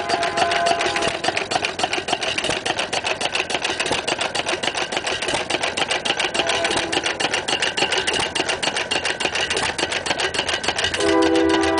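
1-1/2 hp Judson hit-and-miss stationary engine, built by Stover and converted to Wico magneto and spark-plug ignition, running. It gives a fast, even clatter of clicks, about eight to ten a second.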